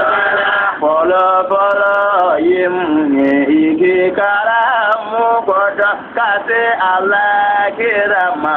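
A man singing a devotional chant in long, held notes that slide and waver in pitch, with short breaks between phrases.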